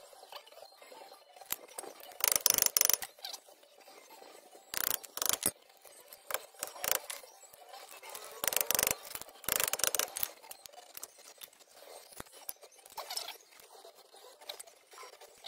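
Hand tools working on a front wheel hub, clicking and rattling metal on metal in several short bursts with quieter ticking between.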